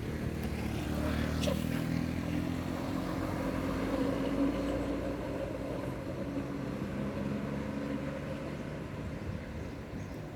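Bus engine running as the vehicle goes by, a low pitched drone that is loudest about four seconds in and eases off near the end.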